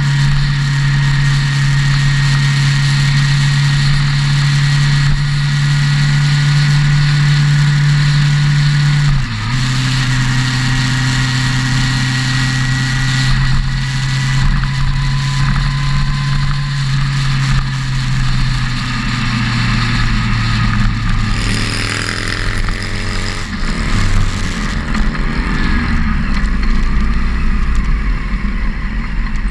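Motorcycle engine running at a steady cruise under heavy wind and road noise. The engine note breaks about nine seconds in and then runs lower, falling gradually and dropping in steps near the end as the bike slows behind other motorcycles, whose engines can be heard close by.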